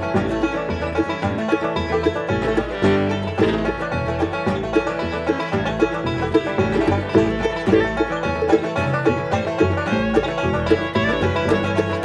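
Acoustic bluegrass band playing an instrumental tune live: quick picked string notes, with low bass notes stepping along underneath.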